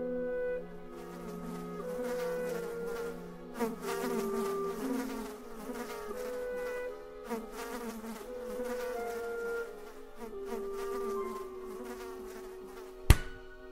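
A buzzing, fly-like drone that steps between held pitches, joined by a few short rustling flurries. Near the end comes one sharp, loud smack.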